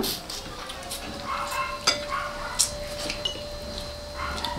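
Tableware clinking during a meal: a few sharp clicks of spoons and plates, with food being handled and eaten.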